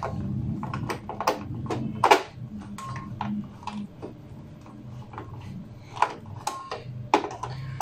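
Scattered clicks, taps and light scrapes of a hand screwdriver and hands on the metal case and motherboard of a desktop computer as the board is fitted and screwed in.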